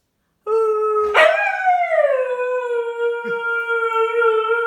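Dog howling: one long howl that starts about half a second in, leaps up in pitch a moment later, then slides down and holds a steady note.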